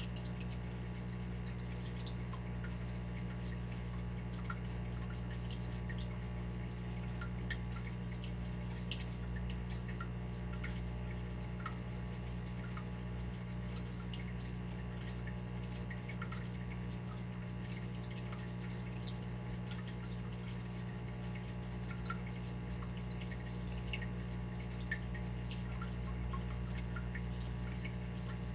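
Water dripping: many small drops landing irregularly, several a second, over a steady low hum.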